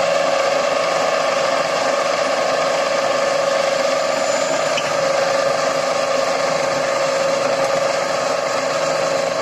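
Bench drill press running, its bit drilling through a sheet-steel blank: a loud, steady motor whine at one even pitch.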